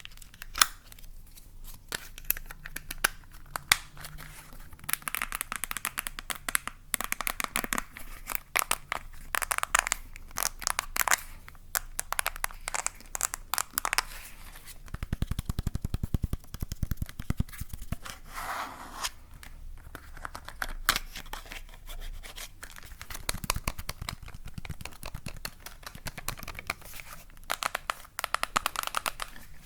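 Close-microphone ASMR handling sounds: crackly crinkling, rustling and scratching of a material right at the microphone, full of fine clicks. There are two spells of rapid low thudding, about halfway through and again later.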